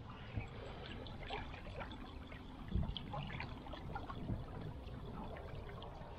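Water trickling and dripping with many small scattered splashes around a small inflatable boat, over a low rumble, with one dull knock about three seconds in.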